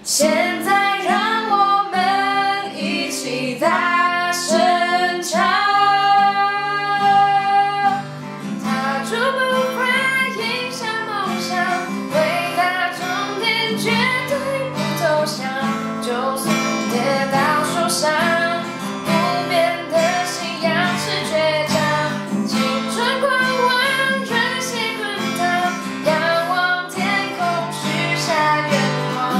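Acoustic guitar strummed in a steady pattern under two voices singing a Mandarin pop song, with one long held note about six seconds in.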